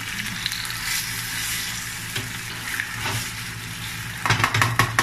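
Udon noodles with kimchi and sauce sizzling in a frying pan as they are stir-fried with a metal slotted spatula. A little over four seconds in comes a quick run of sharp clacks and scrapes of the spatula against the pan.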